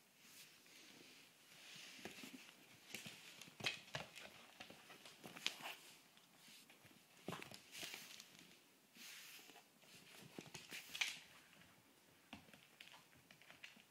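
Faint, irregular rustling of a blanket being tugged and dragged by a miniature dachshund, with scattered clicks and scuffles from its paws on a wooden floor.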